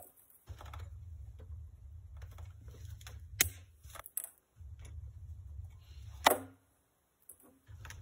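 Clicks and knocks of torch hoses and fittings being handled while a torch handle and hoses are switched over on a gas cylinder, with two sharper clicks, one about three and a half seconds in and one about six seconds in. A low rumble comes and goes underneath.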